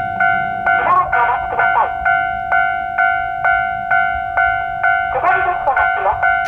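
Japanese electronic level-crossing alarm ringing its standard warning tone about twice a second, with a recorded woman's voice announcing the approaching train twice over the strokes, as on a 'talking' crossing.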